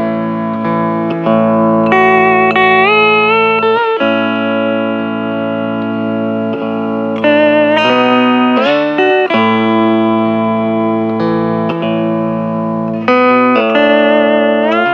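Hawaiian steel guitar (lap steel) playing a slow solo melody, sustained notes joined by smooth slides in pitch from the steel bar, with a rising slide near the end.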